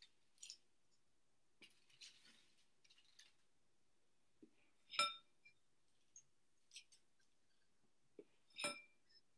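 Metal cookie scoop scraping dough and knocking against a glass mixing bowl: faint scrapes and taps, with two ringing clinks of metal on glass, one about five seconds in and one near the end.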